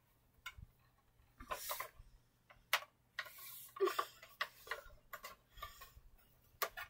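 Light clicks and knocks at irregular intervals from hands handling stuffed toys in a plastic toy car.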